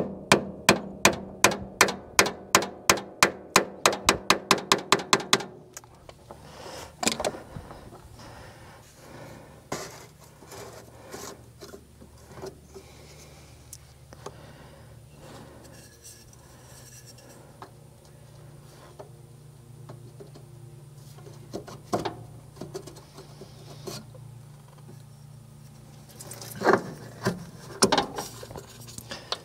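Work on an excavator's spin-on fuel filter and water separator. It opens with rapid, evenly spaced clicking, about four a second, for roughly five seconds. Then comes intermittent metal rubbing and scraping as the filter canister is worked loose and unscrewed by hand, with a few louder knocks near the end as the filter is handled.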